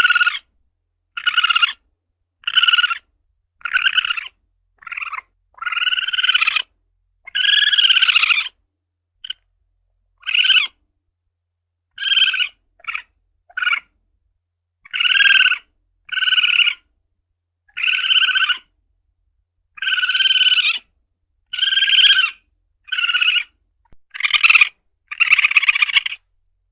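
Asian palm civet (luwak) calling over and over: short high-pitched calls about once a second, with a few longer drawn-out ones, each separated by silence.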